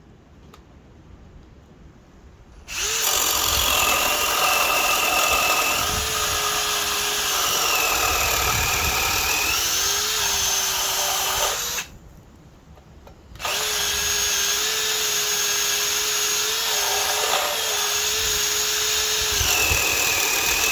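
Metabo HPT DV18DC 18-volt cordless hammer drill boring with a 3/4-inch extra-long paddle bit. It runs in two long bursts with a short stop between them, its motor whine dipping in pitch now and then as the bit loads up.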